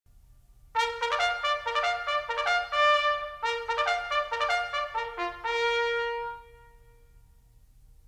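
Background music: a brass melody, trumpet-like, in a run of short notes that ends on a long held note stopping about six and a half seconds in. Only a faint low hum follows.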